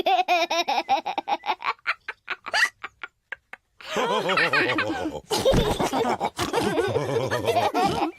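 Cartoon pig characters laughing. A quick run of giggles thins out into a few short separate bursts and stops briefly, then several voices laugh together.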